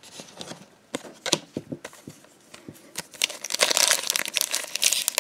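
Trading cards handled and set down with light taps and clicks, then from about three seconds in the loud crinkle of a foil booster-pack wrapper being handled and opened.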